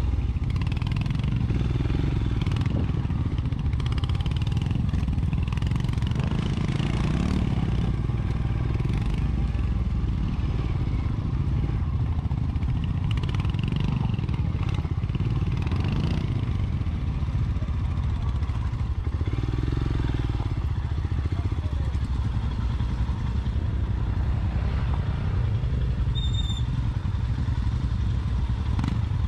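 Royal Enfield Scram 411's 411 cc single-cylinder engine running at low trail speed, a steady low rumble heard from on the bike.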